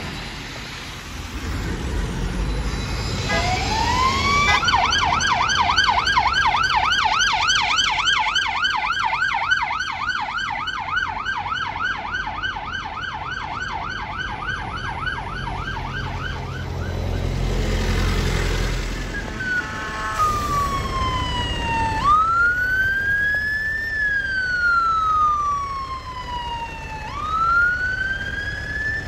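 Emergency vehicle sirens in city traffic. A siren winds up about three seconds in and switches to a fast yelp that runs for about twelve seconds; after a low vehicle rumble, a slow wail rises and falls over several seconds, twice.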